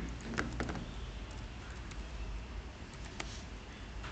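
Computer keyboard keys clicking as a word is typed: a handful of scattered keystrokes over a steady low room hum.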